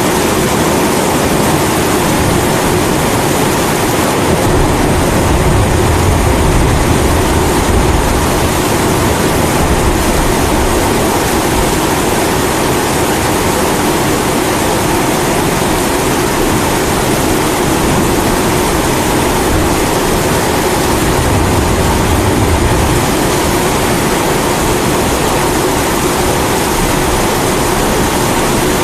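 Kerosene pressure stove (primus) burner running steadily, layered with heavy rain. A low rumble of thunder swells twice, about five seconds in and again past twenty seconds.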